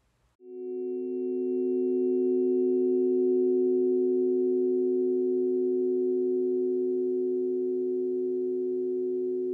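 A chord of several steady pure electronic tones sounding together, a blend of the planetary frequencies for Jupiter, Venus and Sedna. It swells in about half a second in and then holds steady.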